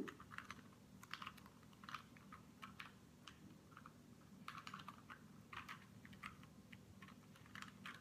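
Rubik's cube being twisted by hand: quiet, irregular plastic clicks as its layers turn, about three a second.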